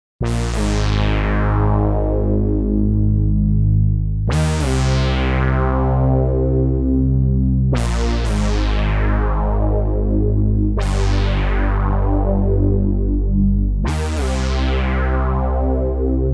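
Software synthesizer playing sustained chords, a new chord struck about every three to four seconds; each one starts bright and mellows as its upper overtones fade away.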